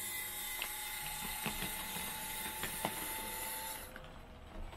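Electric drive motors and gearboxes of a scale RC bulldozer whining steadily while it works, with a few sharp clicks from its tracks and the sand. The whine cuts off suddenly about four seconds in.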